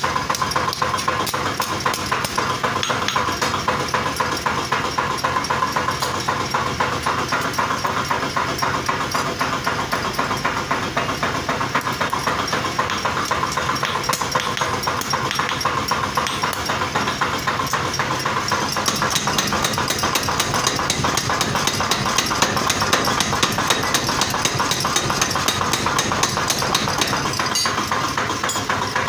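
Forging power hammer pounding hot steel in a rapid, unbroken run of blows, shaping sickle ears.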